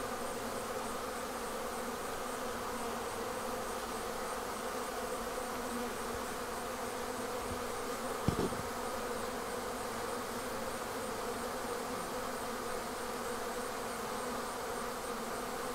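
Steady buzzing hum of a honeybee colony, thousands of bees clustered over the hive front with many more flying around it. A single brief thump a little past halfway.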